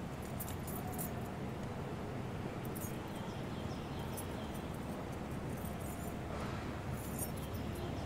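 Steady low rumble of city street ambience, with faint high clinks or jingles now and then.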